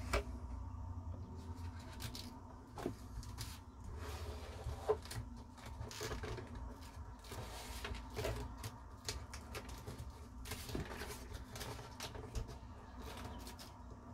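Faint scattered clicks and light knocks from hands handling a wooden-framed record deck, over a low steady hum.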